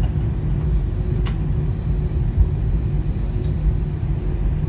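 Airliner cabin noise just after landing, likely while taxiing: a steady low rumble with a faint constant hum. A single sharp click about a second in.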